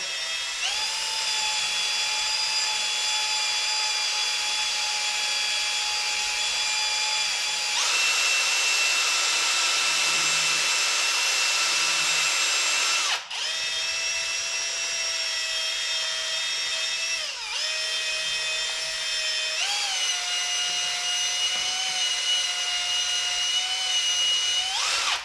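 Hand-held drill spinning a paddle mixer bit in a plastic bowl of thickened epoxy glue, a steady motor whine. It speeds up about eight seconds in, stops for an instant near the middle, then runs on at a lower speed with a couple of brief dips before it cuts off at the end.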